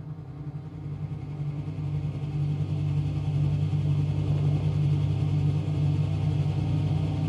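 Low, steady rumbling drone that swells in over the first few seconds, holds, and starts to fade near the end.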